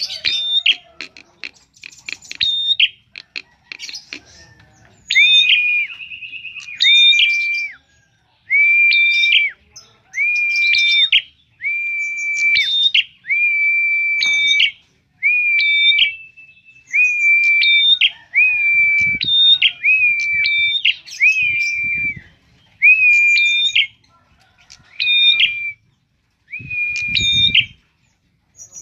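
Prenjak (a prinia) singing. After a few seconds of scattered chips, it repeats one phrase again and again, about every second and a half: a short high note, then a held clear whistle. A few low thumps come near the end.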